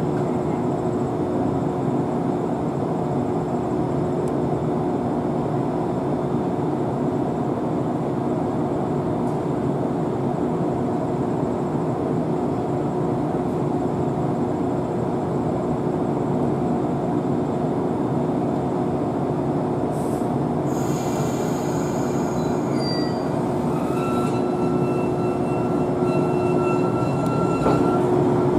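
JR West 115 series electric train running slowly into a station platform: steady rumble of wheels and running gear with a constant hum. High-pitched brake and wheel squeal starts about two-thirds of the way in and holds as the train draws to a stop.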